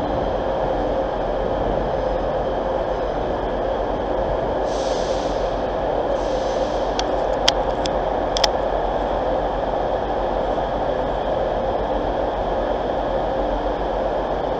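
Diesel multiple-unit train running steadily at a station platform, a constant engine hum and rumble. A brief hiss of air comes about five seconds in, and two sharp clicks come a little later.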